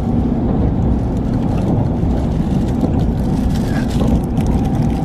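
Shinkansen bullet train running at speed, a steady low rumble heard inside the passenger cabin, with a few faint ticks in the second half.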